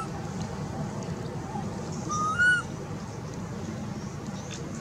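Baby macaque crying: one short, high-pitched call about halfway through that rises, then drops at the end. It is the infant calling for its mother.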